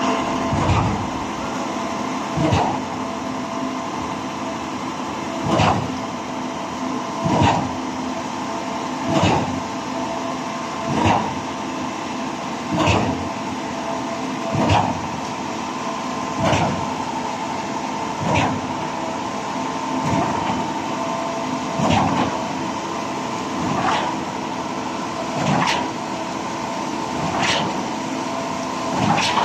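KCP 56 truck-mounted concrete boom pump pumping concrete: a steady engine and hydraulic hum with a sharp knock about every two seconds, the regular clunk of the pump's valve switching at each piston stroke.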